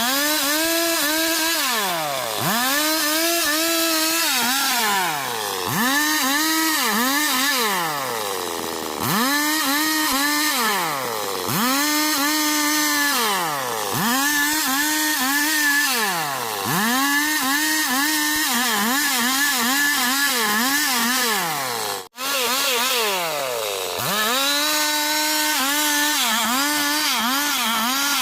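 Stihl chainsaw sawing boards out of wood: the engine revs up to full throttle, holds for one to two seconds with its pitch dipping under the load of the cut, then drops back toward idle, over and over about every two seconds.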